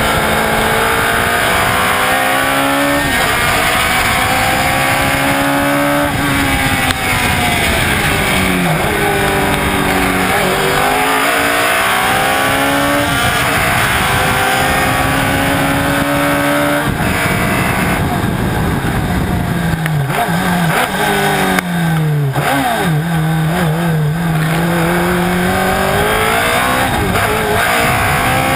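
Alfa Romeo T33 racing car's engine at full racing speed, heard on board. The revs climb, break off at each gear change and climb again, then fall away in steps under braking, several times over.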